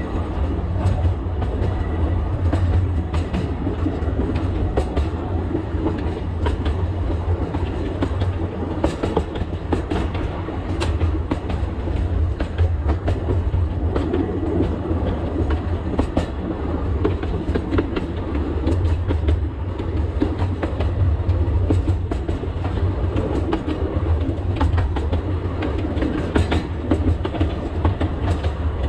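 Alishan Forest Railway narrow-gauge train running, heard from the cab: a steady low rumble with irregular clicks and knocks of the wheels over the rail joints.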